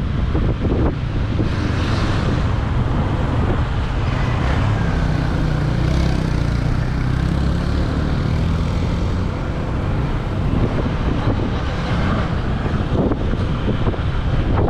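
Honda ADV 150 scooter's single-cylinder engine running steadily while riding slowly in traffic, with wind rumble on the microphone.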